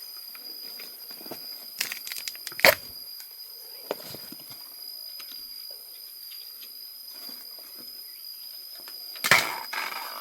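Steady high-pitched insect drone, with scattered rustles and knocks over it, the loudest about two and a half seconds in and a cluster near the end.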